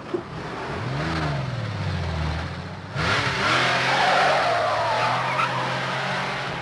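Car engine revving up and dropping back, then about three seconds in a sudden loud tyre squeal as a car pulls away hard, with the engine running under it.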